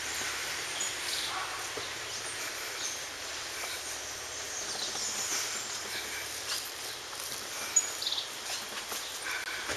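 Outdoor street ambience: a steady hiss of background noise with scattered short, high chirps and a single sharp click about eight seconds in.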